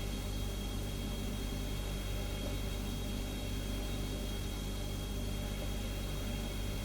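Refrigerator humming steadily: a low hum over a soft hiss, with a thin high whine running through it.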